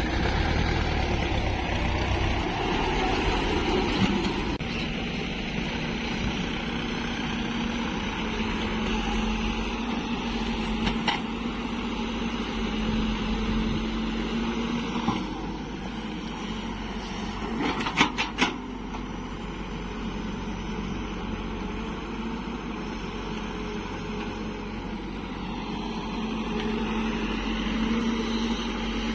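Diesel engines of a Hyundai 140 crawler excavator and farm tractors running steadily while the excavator loads soil into a tractor trolley. A short cluster of sharp knocks comes about two-thirds of the way through.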